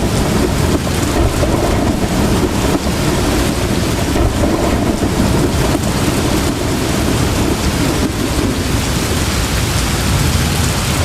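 Heavy rain falling steadily with a low, continuous rumble of thunder underneath.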